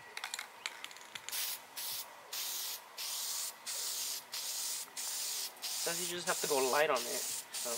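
Aerosol can of Eastwood guide coat spraying in short hissing bursts of about half a second each, one after another with brief breaks, as the guide coat is dusted over a primered panel ahead of sanding.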